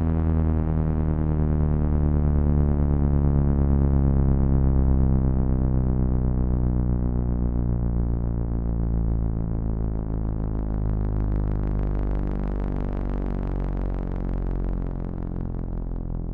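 Synthesized simulation of several outdoor warning sirens (a Gas Mobil Directo, a 4/5 Thunderbolt, an SD10 and a 500T) sounding together. Their overlapping tones slowly fall in pitch and fade a little as the sirens wind down.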